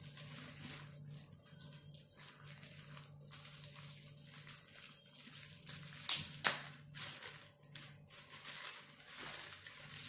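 Thin clear plastic bag crinkling and rustling as it is handled and pulled off a small speaker, with two sharp, louder crackles about six seconds in.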